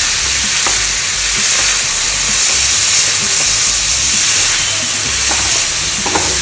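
Hot oil sizzling in a pan as dal is sautéed for coconut chutney: a loud, steady hiss with a few light clicks.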